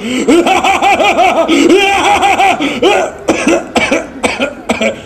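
Children's voices laughing in quick, repeated bursts at several pitches at once. In the second half this breaks into separate short, sharp, cough-like bursts.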